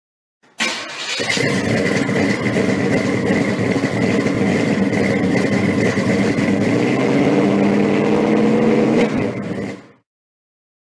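A large car engine running steadily, with a thin high whine above it. It comes in suddenly just after the start, lifts slightly in pitch near the end, and stops shortly before the end.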